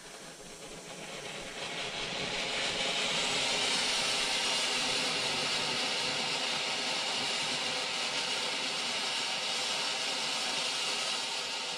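Funke Silbertürme F1 fountain (20 mm ground fountain) spraying silver sparks with a steady hiss, swelling up over the first couple of seconds and starting to die down near the end.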